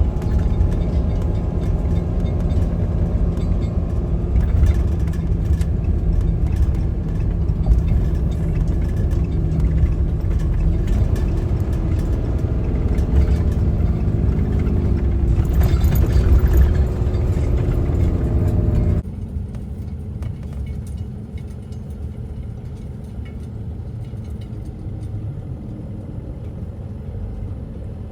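Truck engine and road noise while driving: a steady low drone whose engine note climbs gradually for several seconds, then drops suddenly to a quieter, steady drone.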